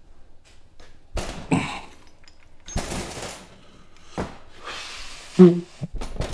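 Heavy clunks and scraping as a small-block Chevy 283 cylinder head is set down and handled on a workbench, with knocks a little over a second in, around three seconds in, and again near the end, and rustling between them.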